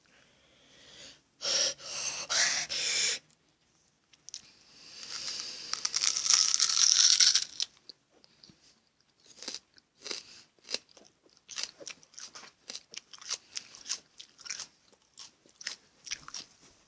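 A person chewing raw onion close to the microphone, with crisp crunches about two or three a second through the second half. Before that come two long, loud breathy exhalations.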